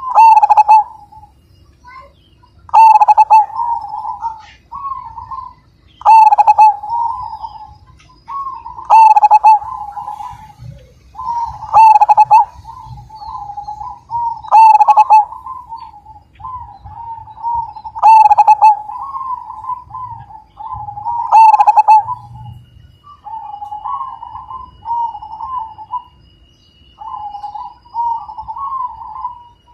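Zebra dove (perkutut) cooing: a series of rolling coos, with a loud phrase that opens sharply about every three seconds. The coos after about 22 seconds in are softer, with no sharp opening.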